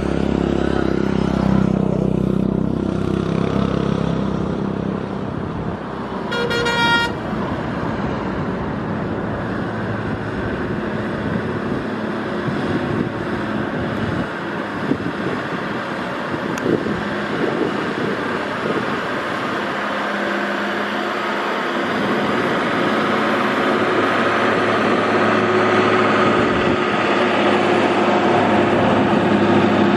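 Road traffic at a hairpin bend: the engines of buses and trucks running as they take the turn, with one short vehicle horn honk about six seconds in.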